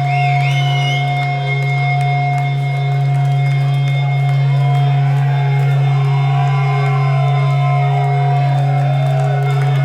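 Stage amplification left ringing after a metal band's set: a loud steady low drone under held tones and wavering, squealing pitch glides, like electric guitar feedback.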